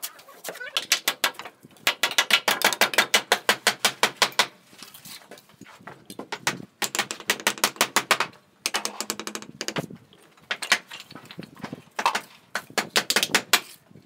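Bricklaying work: bricks clinking together and a steel trowel scraping and tapping on brick and mortar, in repeated runs of quick, sharp clicks a second or two long with short pauses between.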